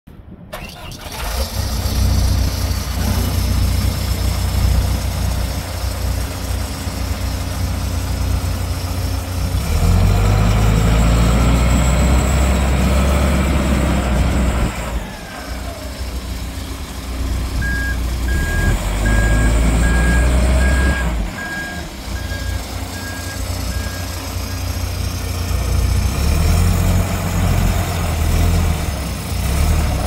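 John Deere 410L backhoe loader's diesel engine running, revving up twice as the machine is driven and the loader worked. A backup alarm beeps about twice a second for several seconds in the middle.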